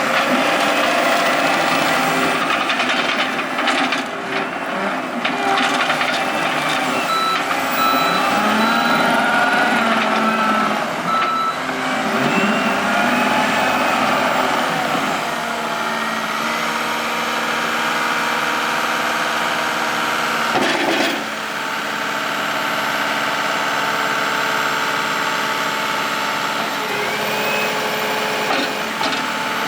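John Deere 333G skid steer's diesel engine running as the machine is operated, its pitch rising and falling through the first half and then holding steady, with a brief dip about two-thirds of the way in. A reversing alarm beeps in places.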